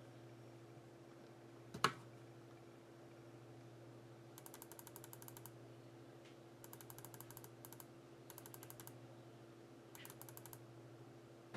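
Four short runs of rapid, evenly spaced small clicks, with a single sharper click a couple of seconds in, over a steady low hum.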